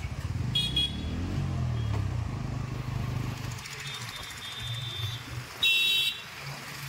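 Street traffic: a motor vehicle's engine running low, with a short horn beep soon after the start and a louder half-second horn blast near the end.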